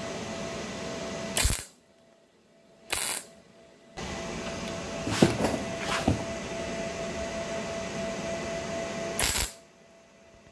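MIG welder arc crackling in short beads as weld is built up on the worn corners of a motorcycle gearbox gear's engagement teeth. A short run stops about a second and a half in, a brief blip follows near three seconds, then a longer run of about five seconds cuts off near the end.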